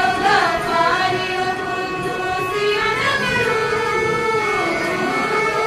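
A group of schoolgirls singing an Urdu nazm together, with long held notes that slide up and down in pitch.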